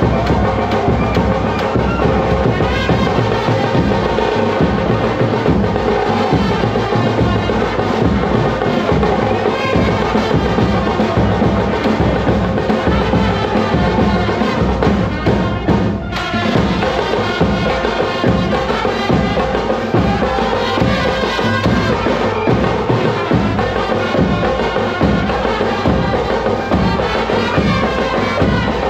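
Live brass band playing: trumpets and saxophones carrying a tune over a steady, driving beat on a large bass drum and snare drums.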